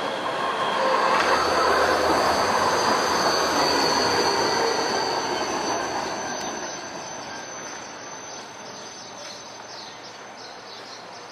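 Berlin low-floor articulated tram passing close by on street track, its steel wheels rolling on the rails with a steady high-pitched squeal. The noise is loudest in the first few seconds and fades as the tram moves away.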